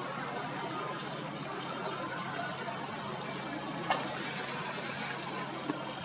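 Steady rushing and trickling of river water flowing, with a single sharp click just before four seconds in.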